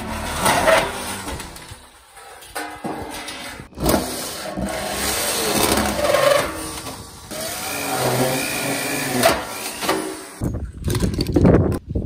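Electric drill cutting through a stainless steel pan with a 30 mm carbide hole saw: the motor whines and grinds, rising and falling in pitch as the cutter bites into the metal, with a few sharp knocks. Near the end, a quick run of light clicks and knocks.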